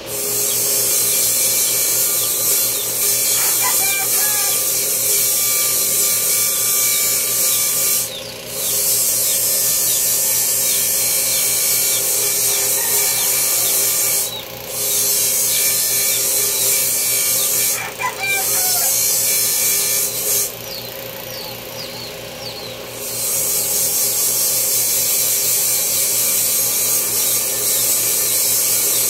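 A power grinder running with a loud, steady hiss over a motor hum, broken by a few short pauses and a quieter stretch around twenty-one seconds in. A rooster crows twice in the background, about four and eighteen seconds in.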